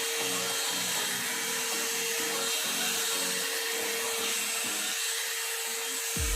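One-step hair dryer and styler (hot-air brush) blowing steadily, a constant rush of air with a steady motor whine.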